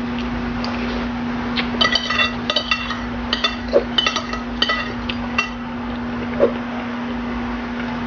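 Metal spoon and fork clinking against a dish: a quick run of about a dozen ringing clinks between about two and five and a half seconds in, then a duller knock, over a steady low hum.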